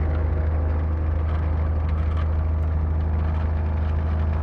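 Jabiru light aircraft's engine and propeller running steadily, heard from inside the cockpit as a loud, even, low drone.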